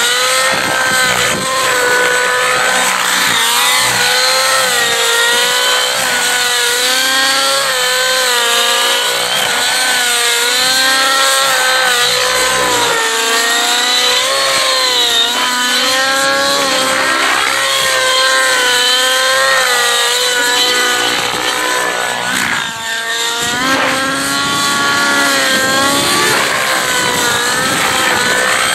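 Nitro glow engine of a Rave ENV 90 RC helicopter running hard in aerobatic flight, its high buzz wavering up and down in pitch as throttle and load keep changing.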